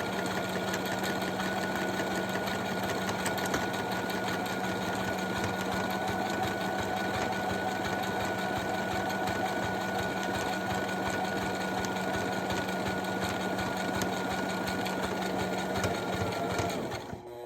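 Brother LS-590 mechanical sewing machine running steadily, motor humming as the needle stitches a buttonhole with the buttonhole foot. It stops just before the end, with the buttonhole finished.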